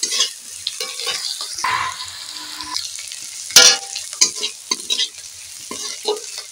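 Sliced onions and chillies sizzling in hot oil in a metal karahi as a metal spatula scrapes and knocks against the pan while stirring. The loudest clank comes about three and a half seconds in.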